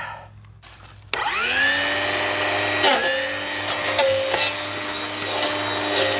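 Cordless 40V electric brush cutter spinning up with a rising whine about a second in, then running steadily. Its pitch dips briefly a few times as the blade bites into sapling stems, with sharp cracks from the cuts.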